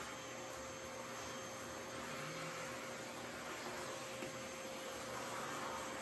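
Panasonic paper-bag canister vacuum cleaner running steadily on its standard setting, a continuous hiss with a steady hum, as its nozzle is worked over a hardwood floor and rug.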